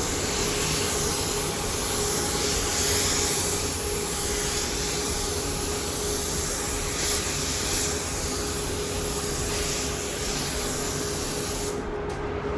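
A workshop power tool running steadily: a strong hiss with one constant whine, cutting off near the end.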